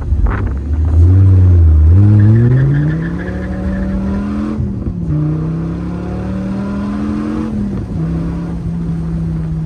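A car accelerating hard from a stop. The engine note climbs, drops at an upshift about four and a half seconds in, climbs again, drops at a second shift near eight seconds, then holds steady. It is loudest during the first hard pull.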